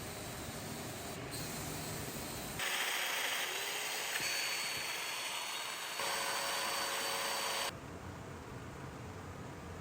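Woodworking power tools running in a series of short cuts, the sound changing abruptly three times; the loudest stretch, in the middle, is a steady hiss with a high whine.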